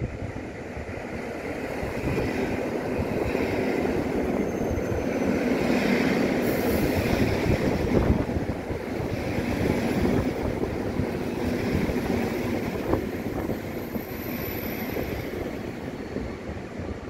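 Koleje Mazowieckie electric multiple unit running past close by, its wheels rumbling on the rails. The sound swells to its loudest about halfway through, then slowly fades as the train moves off.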